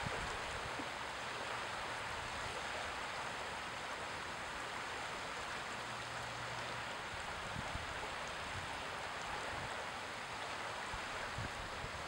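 Small wind-driven waves lapping over shallow flats, a steady wash of water, with wind and a few faint low buffets on the microphone now and then.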